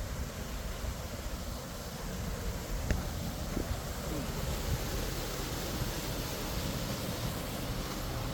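Wind buffeting the microphone over a steady rushing noise, with a faint tick about three seconds in.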